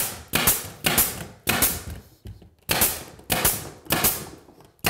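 Pneumatic DeWalt 18-gauge brad nailer firing 2-inch brads through the first row of engineered hardwood flooring, surface-nailing along the board. About nine shots, roughly one every half second, with a short pause about two seconds in.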